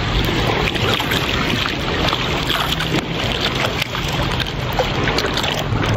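Steady rushing and crackling of sea water close to the microphone, with a faint low hum underneath.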